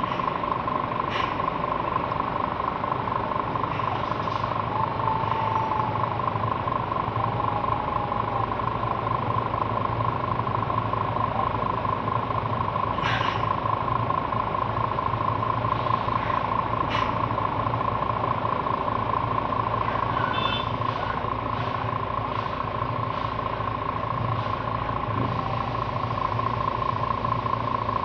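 Heavy diesel trucks idling steadily, a low hum with a steady high whine over it and a few short clicks.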